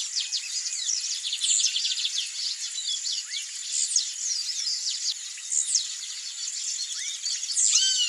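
Blue-black grassquit singing its short, high song phrase four times, about every two seconds, over a dense background of other small birds' chirps and trills.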